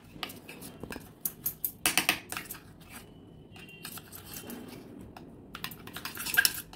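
A spoon clinking and scraping against a bowl while ghee and cornflour are stirred together into a paste. The taps come in two clusters, one about a second in and one near the end, with a quieter stretch between.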